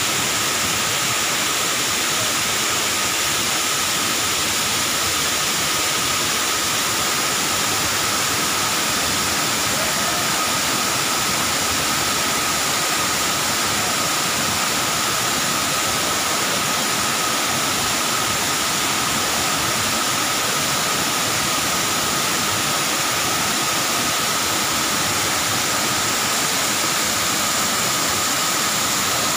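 Waterfall spilling down a rock face into a pool: a steady, unbroken rush of falling water.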